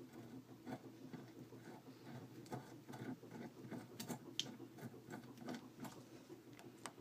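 Faint, scattered clicks and light metallic taps from a screwdriver working on a Prévost lock cylinder as its tail piece is removed. A few sharper clicks come about four seconds in.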